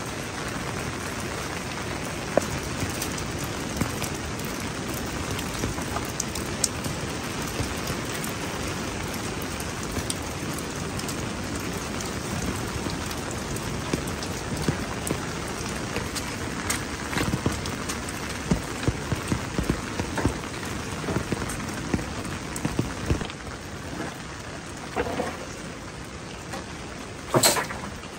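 Steady heavy rain falling, with many separate drops and drips striking close by, coming thicker toward the middle and later part. A single sharp knock sounds near the end.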